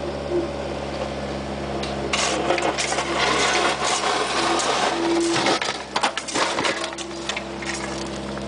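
Compact excavator's diesel engine running steadily while its bucket scrapes and crunches across dirt and broken asphalt, loudest from about two to seven seconds in.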